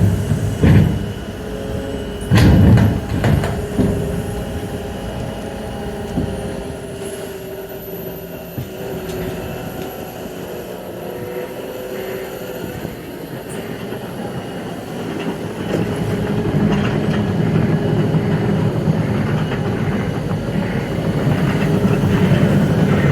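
A heavy vehicle's engine running, growing steadily louder in the second half as it approaches. A few dull thumps sound in the first few seconds.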